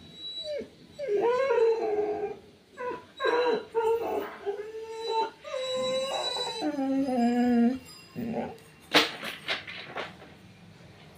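Dog whining and howling in long, wavering cries. A few sharp, short sounds follow about nine seconds in.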